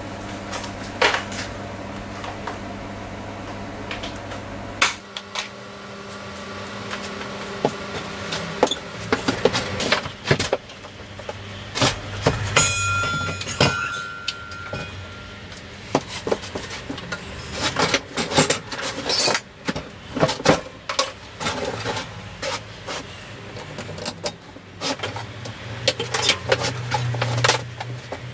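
Irregular knocks, clanks and clatter of metal tools and equipment being shifted around, including the welding gas cylinder being moved. A steady low hum runs underneath and cuts off about five seconds in.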